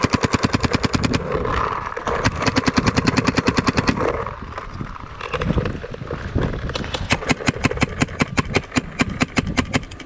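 Electropneumatic paintball marker, a 2015 Empire Axe Pro, firing rapid strings of shots at about a dozen a second, in three separate bursts.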